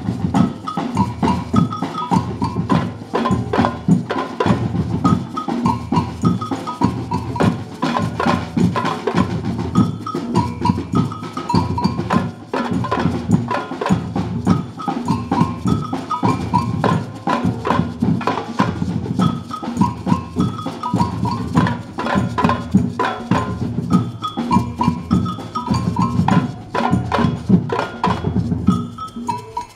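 A group of drums (strapped bass drums, hand drums and congas) playing an Afro-Brazilian percussion rhythm together, with a high, pitched clicking pattern over the drumming. The playing stops right at the end.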